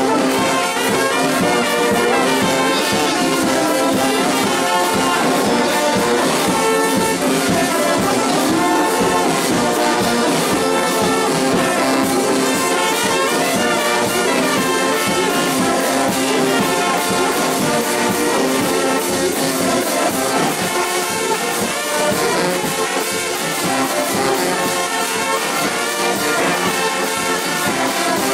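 Music with brass instruments, trombone and trumpet sounding, playing steadily and loudly without a break.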